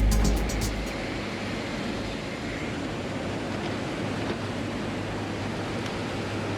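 Steady jet aircraft noise heard from inside the aircraft: a constant rushing of engines and airflow with a low hum underneath. Electronic music fades out in the first second.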